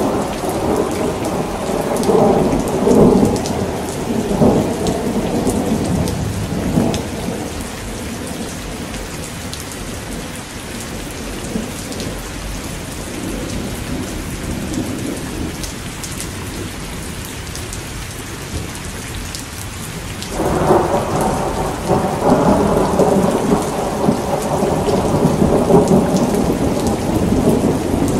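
Thunderstorm: steady rain falling with thunder rumbling. A long peal of thunder rumbles through the first several seconds, and the rain carries on alone for a while. Then a loud new peal breaks in suddenly about twenty seconds in and keeps rumbling.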